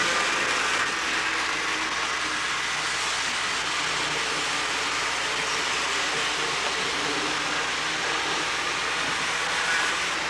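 HO scale model trains running on the layout, a steady, even sound without distinct clicks.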